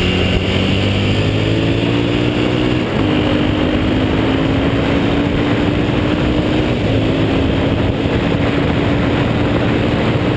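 Yamaha XT660's single-cylinder engine pulling hard under acceleration, its pitch climbing and stepping down at two upshifts, about three and seven seconds in. Steady wind rush over the microphone at speed.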